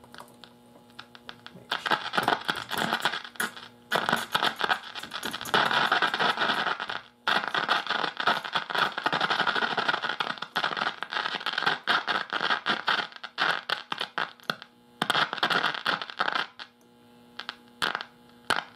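Philco tube radio's speaker putting out bursts of scratchy static and crackle over a steady mains hum, coming and going as the tubes are wiggled in their sockets. The noise is a sign of poor contact, which the restorer puts down to corroded pins on the 7A8 loctal tube or a bad socket.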